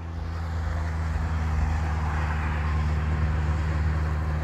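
Steady low hum of a motor vehicle engine running, under an even hiss, fading in over the first second.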